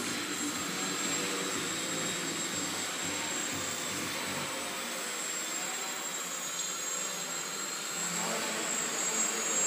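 Small electric indoor RC aerobatic planes flying overhead, their motors and propellers making a steady whirring buzz with a thin high whine.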